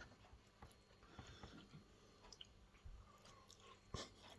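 Faint chewing of a mouthful of braised beef pie: soft mouth sounds and small clicks, with a sharper click about four seconds in.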